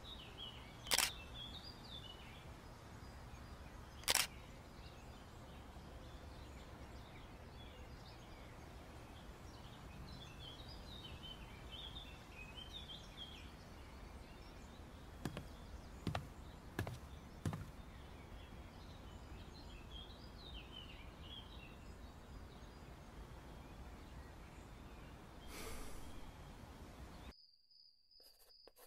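Quiet outdoor ambience with birds chirping now and then, and sharp single clicks of a DSLR camera shutter: two in the first few seconds and a few more about halfway through. Shortly before the end it drops to near silence.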